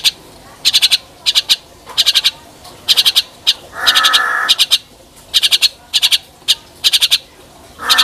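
Javan mynas calling: quick clusters of sharp, clicking chatter repeating about twice a second, with one harsh, raspy call about four seconds in.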